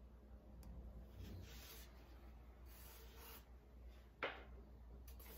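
Faint rubbing and rustling of hands handling a plastic vial and foam packaging, two soft swishes, then one sharp tap about four seconds in.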